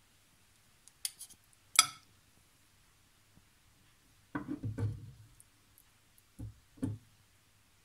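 Kitchen handling sounds: sharp clinks of ceramic plates or cutlery about a second and two seconds in, then a cluster of dull bumps and two more knocks near the end.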